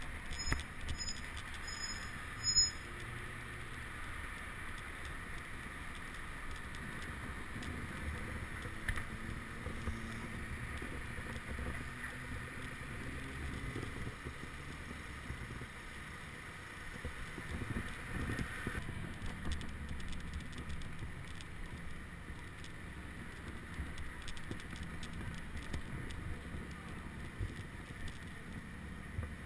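Street traffic and road noise picked up by a bicycle-mounted action camera: a steady rumble of cars and the bike on the road, with a sharp click a few seconds in.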